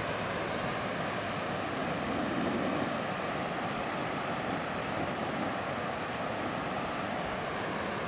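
Waterfall on a rocky stream: a steady, even rush of water falling over rocks.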